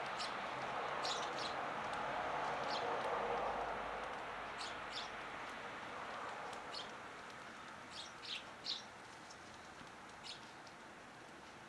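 Small garden birds giving short, high chirps, singly and in quick clusters of two or three. Under them, a broad rushing noise swells over the first few seconds and then fades.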